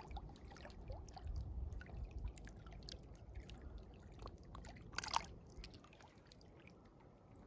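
Faint water splashing and dripping as a hooked fish is landed, with one sharper splash about five seconds in.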